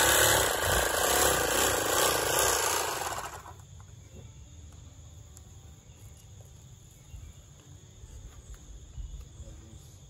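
Handheld electric bag-closing sewing machine running as it stitches the top of a filled corn sack shut: a loud, steady machine noise that stops about three and a half seconds in.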